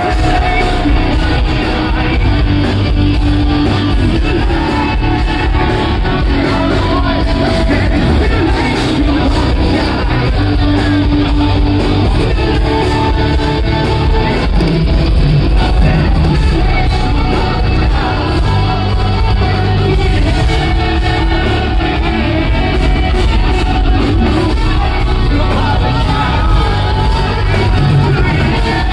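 Live rock band playing loudly through the venue's PA: electric guitars, bass guitar and drums with a singer, heard from within the crowd in a large hall.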